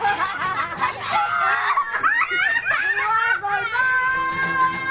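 A group of people laughing and shrieking, their high excited voices overlapping, with one long held cry near the end.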